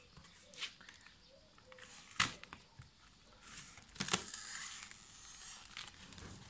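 Cardboard shipping box being pulled open by hand: packing tape and cardboard tearing, with three sharp snaps and a longer ripping sound from about three and a half seconds in.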